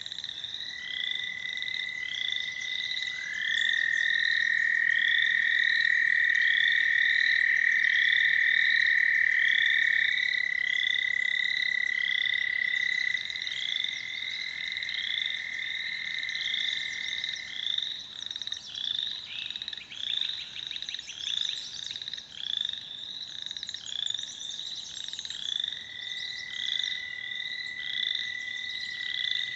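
Pond frog chorus: the long, steady trills of American toads overlap, loudest between about 3 and 13 seconds in. Under them runs a constant string of short, repeated higher calls, with a burst of rapid pulsed trilling about 20 seconds in, typical of grey treefrogs.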